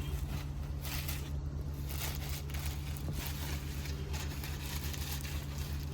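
Soft, irregular rustling of saree fabric being handled, over a steady low hum.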